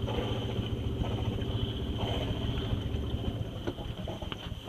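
Sailboat's inboard engine running steadily at low speed, a low hum that eases off about three and a half seconds in, with a few light knocks near the end.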